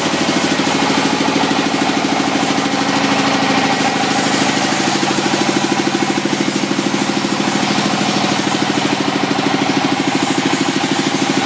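Engine powering a hydraulic concrete-block press, running steadily with an even, fast pulsing beat.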